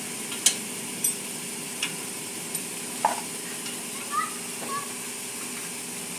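Sharp metallic clicks and taps, a few seconds apart, from hand tools on the parts behind a car's front wheel during a manual wheel alignment. They sit over a steady hiss.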